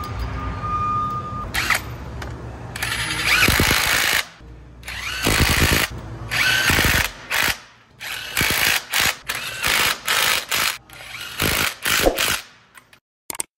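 Ridgid 18V cordless impact wrench tightening the lug nuts on a forklift wheel. It runs in two longer bursts, then a quick string of short bursts as each nut is hammered tight.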